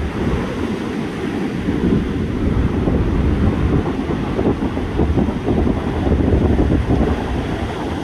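Rough sea surf, stirred up by an approaching typhoon, breaking continuously on the shore, with strong wind buffeting the microphone in a steady low rumble.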